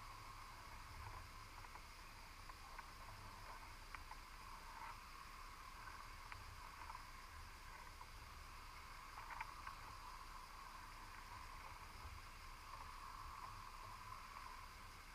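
Faint underwater ambience picked up by a GoPro in a sealed underwater housing: a steady low hum and hiss, with a few faint ticks scattered through.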